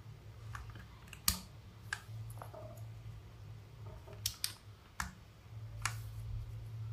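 Plastic keycaps being pressed onto mechanical keyboard switches (KTT Mint and Red Wine linear switches): irregular sharp plastic clicks and taps, the loudest about a second in, over a low steady hum.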